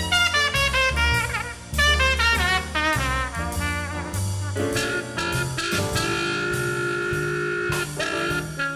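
Jazz music with brass horns playing a run of quick, bending notes over a moving bass line, with one long held note near the end.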